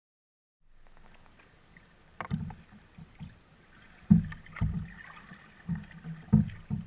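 Kayak being paddled: a run of irregular dull knocks and thumps, about every half second to a second and some of them sharp, over a faint hiss. It starts after a brief silence.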